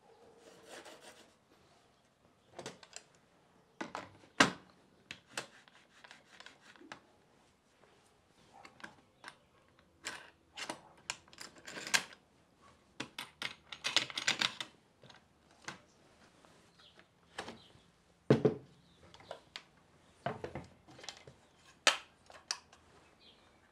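Hands working the aluminium parts of a Milescraft track saw guide on a plywood bench: scattered clicks, taps and knocks as the saw blade spacer is set against the red base and its clamps and end stops are adjusted, with a stretch of rubbing and scraping about two-thirds of the way through. A circular saw is handled with a couple of louder knocks near the end.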